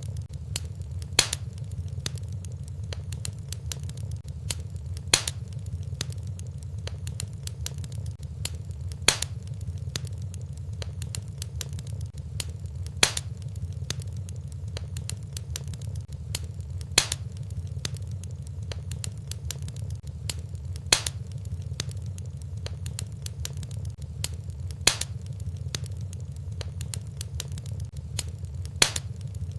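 Fireplace fire burning with a steady low rumble and continual faint crackling, with a sharp louder pop about every four seconds at even spacing, as in a looped recording.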